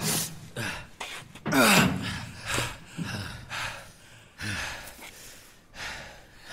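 A strained, pitched groan of effort about one and a half seconds in, then a run of gasping breaths that get fainter: a person straining to pull loose iron cell bars and then catching their breath.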